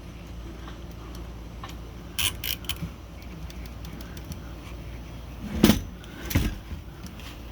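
Metal typewriter parts being handled: a quick run of about four small metallic clicks a couple of seconds in, then two louder knocks a little under a second apart near the end, the first the loudest, over a steady low hum.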